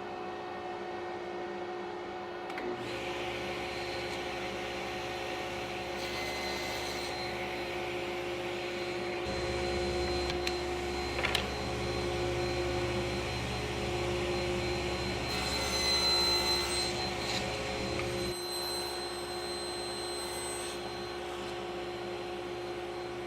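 A woodworking power tool runs steadily for about fifteen seconds and shuts off, over a constant shop hum, with a sharp click about halfway through.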